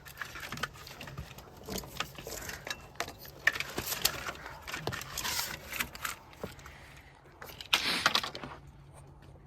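Irregular metallic clattering and rattling, like small parts and tools being handled, with a louder clatter near the end.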